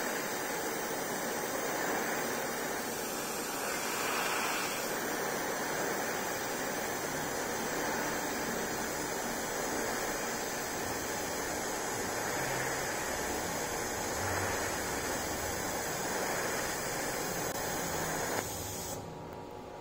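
TIG welding arc at about 90–95 amps hissing steadily as an open root pass is run up a vertical plate joint, with filler wire fed in. The arc cuts off near the end.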